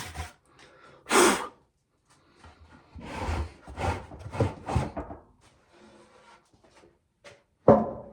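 Wooden cover boards being pulled off a corn storage tub: a scrape about a second in, a run of scraping and knocking in the middle, and two sharp wooden knocks near the end, the loudest sounds here.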